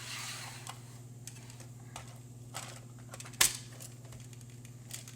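Light plastic clicks and knocks of a toy gumball machine being handled while its top is fitted back on, with one sharp, louder click about three and a half seconds in. A steady low hum runs underneath.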